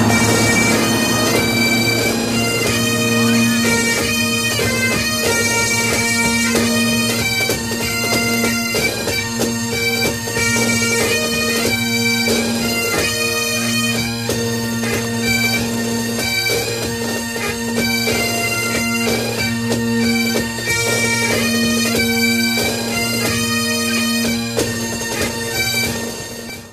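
Bagpipe music: steady drones sounding under a shifting chanter melody, fading out near the end.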